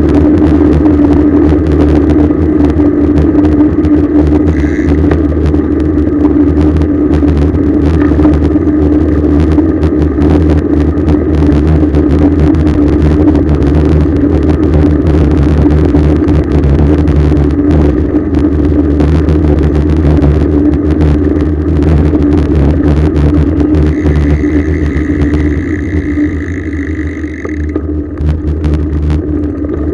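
Wind rush and road rumble on a bicycle-mounted camera during a ride, loud and steady with a constant low hum. Near the end a high, steady squeal lasts about three seconds.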